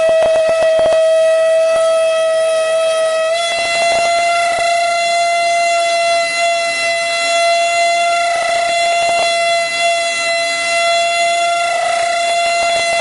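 Metal-cutting lathe tool squealing against the turning workpiece: a loud, steady, high-pitched screech that steps slightly higher in pitch about three seconds in, with a few clicks in the first second.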